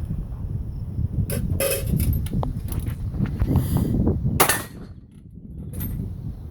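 A few sharp cracks and clangs over a steady low rumble, the loudest about four and a half seconds in: shooting on a range, with hits ringing on steel targets.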